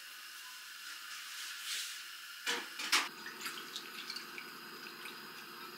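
Thawed jjolmyeon noodles being pulled apart by hand over a glass bowl, with small wet drips and clicks. Two sharp knocks halfway through are the loudest sounds.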